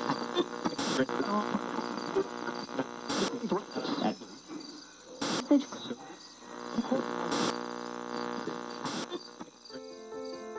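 Steady electrical hum with crickets chirping, and a faint click every two seconds or so. Soft piano music comes in near the end.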